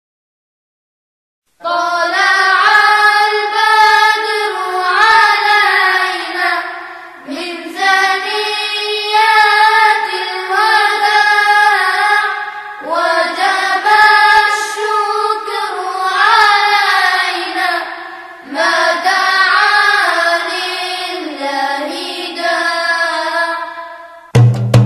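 After a second and a half of silence, a high solo voice sings a slow, ornamented chant in four long phrases, with no words picked out. A drum beat begins right at the end.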